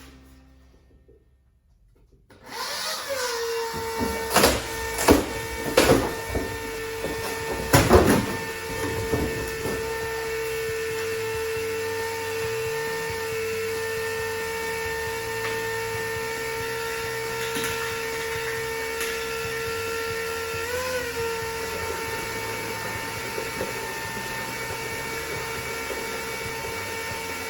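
Small electric pump motor starting up a couple of seconds in and then running with a steady hum while it pumps RV antifreeze ballast into a tractor tire, with a few knocks and clatters soon after it starts and a brief wobble in its pitch later on.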